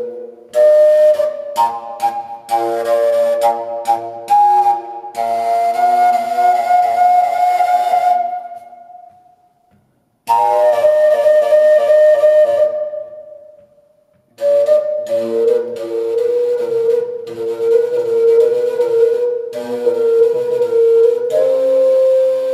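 Solo flute playing a slow melody in phrases, some notes held long and fading away, with two short pauses between phrases.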